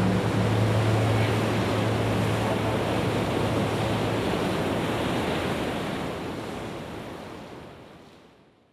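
Steady rushing noise with a low hum beneath it; the hum dies away about four seconds in, and the noise fades out to silence near the end.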